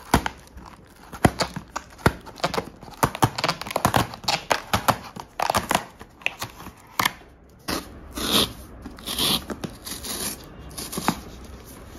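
Perforated tear strip of a corrugated cardboard shipping box being ripped open by hand, a quick run of sharp crackling snaps as the perforations give. Near the end come a few longer cardboard rustles and scrapes as the box is opened.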